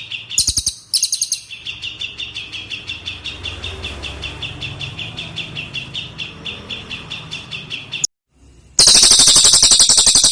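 Cililin birdsong: a fast, steady run of repeated high chirps, several a second, with brief higher trills near the start. After a short break near the end, a louder, higher rapid trill begins.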